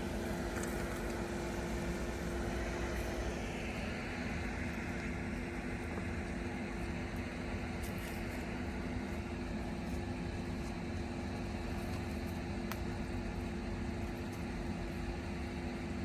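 Steady mechanical hum with two constant low tones, unchanging throughout, with a few faint clicks.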